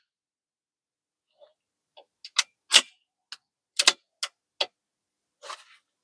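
Metallic clicks and clacks of a CZ 457 bolt-action rifle's bolt being worked after a shot, cycling the action to eject the spent case and chamber the next round. There are about ten sharp clicks, spread out irregularly from about two seconds in to near the end.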